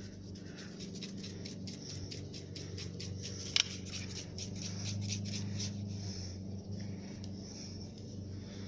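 Light, irregular scratchy rustling and ticks over a steady low hum, with one sharp click about three and a half seconds in.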